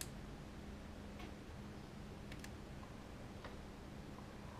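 Faint, irregular light clicks, roughly one a second, from spark plug wires and ignition coil parts being handled under the hood, over a low steady hum.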